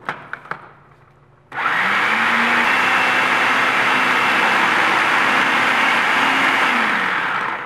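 Food processor motor running steadily for about six seconds, whirling pasta dough of flour, egg yolks and olive oil at the coarse-meal stage. A few light clicks come before it starts, about one and a half seconds in, and it winds down just before the end.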